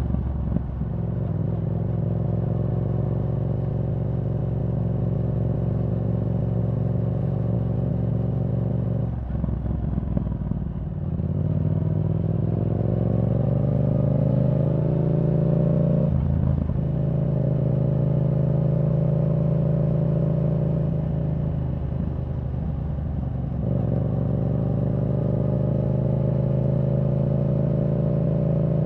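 Yamaha R7's parallel-twin engine through a Yoshimura R77 exhaust with the dB killer removed, cruising on the road with a steady exhaust note. About a third of the way in the note dips, then climbs in pitch for several seconds, with abrupt changes in the note about halfway through and again near the end.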